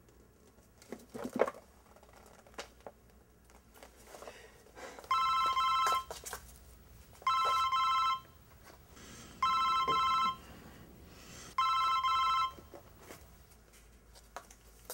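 A mobile phone ringing four times with an electronic warbling ringtone, each ring just under a second long and about two seconds apart. A brief rustle and knock comes about a second in, before the ringing starts.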